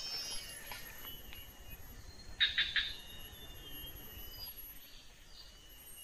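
Faint forest ambience: thin, high, steady calls of forest creatures, with a quick run of three or four sharper, louder notes about two and a half seconds in.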